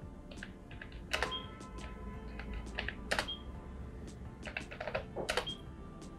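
Typing on a ProDot computer keyboard: irregular key clicks, with louder strokes about one, three and five and a half seconds in, each followed by a brief high tone.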